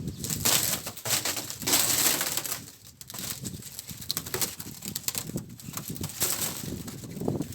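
Covering of a wind-wrecked greenhouse being pulled and torn off its frame by hand, crumpling and crackling in irregular bursts.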